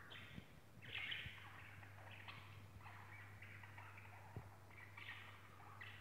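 Budgerigars chirping and chattering softly in short scattered bursts, the strongest about a second in, over a low steady hum.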